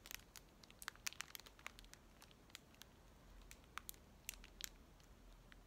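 Faint, scattered crinkling and clicking of a clear plastic pack of bagged diamond painting drills being turned in the hand.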